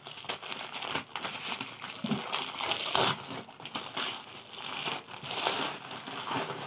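Clear plastic shrink-wrap crinkling and rustling as it is cut with scissors and pulled off a box, with scattered sharp crackles.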